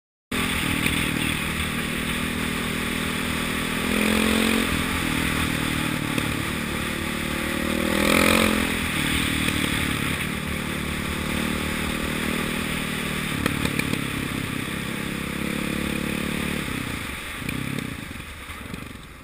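KTM 525 dirt bike's single-cylinder four-stroke engine running under the rider, heard from the bike itself with wind and trail noise, revving up in pitch about four seconds in and again, loudest, about eight seconds in. Near the end the engine drops back as the throttle closes.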